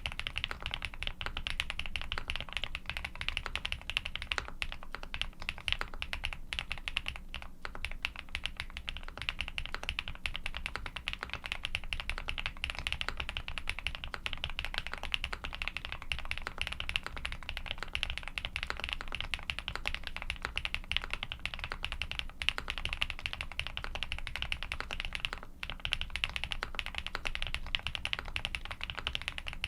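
Continuous fast typing on a custom mechanical keyboard with lubed Durock Cobalt POM switches on a polycarbonate plate, a dense run of key clacks with brief pauses.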